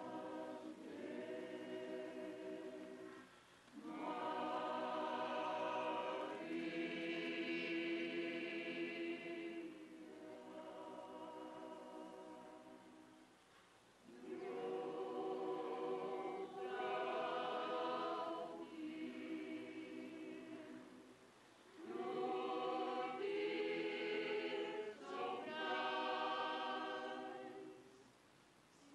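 Choir singing in long held chords, pausing briefly between phrases.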